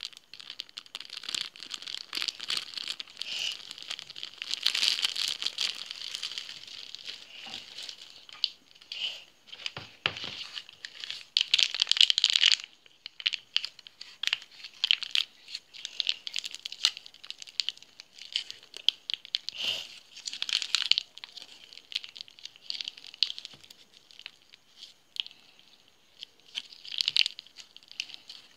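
A plastic margarine sachet crinkling and crackling as it is handled and squeezed, pressing margarine out onto flour. Irregular crackles come in louder spells, with a sudden stop about halfway through.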